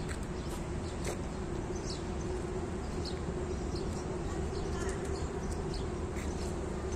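Outdoor garden ambience: a steady low hum with short, scattered high chirps throughout.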